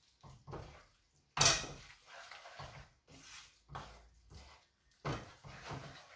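A wooden spoon stirring and scraping thick cereal risotto in a frying pan, with irregular knocks of spoon against pan; the loudest is a sharp knock about a second and a half in, with another about five seconds in.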